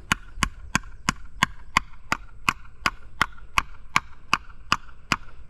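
Steady series of sharp knocks, about three a second, tapping a plastic wall anchor into a drilled hole in the wall.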